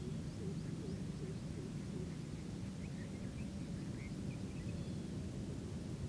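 Outdoor wetland ambience: a steady low rumble with faint, distant bird calls, a run of short notes early on and scattered high chirps in the middle.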